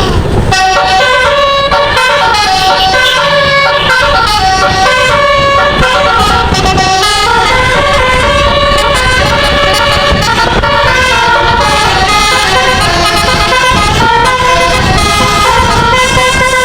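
A bus's multi-note telolet musical air horn playing a basuri-style tune, with notes stepping quickly up and down without a break, over a steady low rumble.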